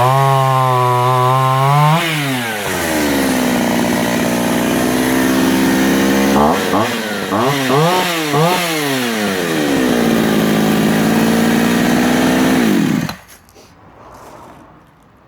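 Oleo Mac 945AF two-stroke chainsaw running at high revs with a brief dip in pitch, then dropping to idle about two seconds in. Near the middle it is blipped up and down four or five times, settles back to idle, and cuts off suddenly about thirteen seconds in.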